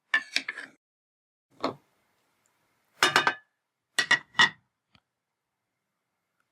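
Short, sharp clicks and taps in small clusters, a few of them with a brief high clink, separated by silence.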